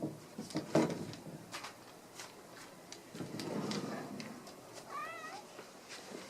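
Domestic cat meowing with a short, wavering call about five seconds in, among soft taps and rustling.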